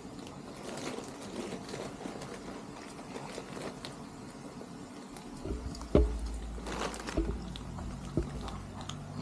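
Dry cat food rattling out of a plastic bag onto a plate, then kittens crunching the kibble, heard as many small scattered ticks. About six seconds in there is a low rumble with a loud thump, and another thump comes near the end.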